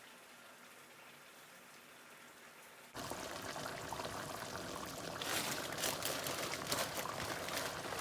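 Chicken in tomato-sauce liquid bubbling and sizzling in a pot on medium-high heat, with many small crackles, as the liquid cooks down. It comes in suddenly about three seconds in after a quiet stretch and grows louder toward the end.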